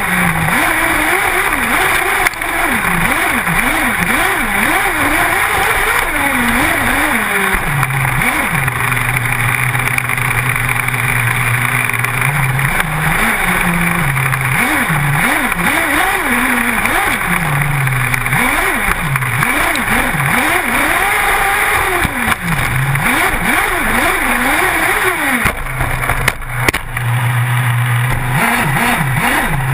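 Small two-stroke engine of a radio-controlled car, heard close up from on board, revving up and falling back again and again with short steady stretches at part throttle. Tyres and gravel hiss under it, and there are a few knocks near the end.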